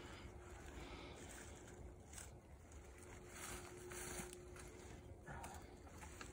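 Faint rustling and scraping of dry fallen leaves, with soft handling noises, as a dead deer is shifted and a compound bow is laid across it.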